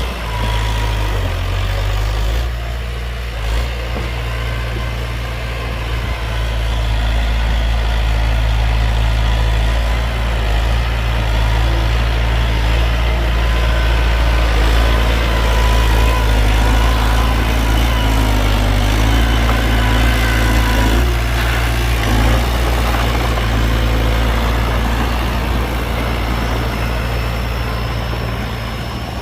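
Heavy diesel engine of earthmoving machinery running steadily, loud and low, with faint whining tones coming and going over it.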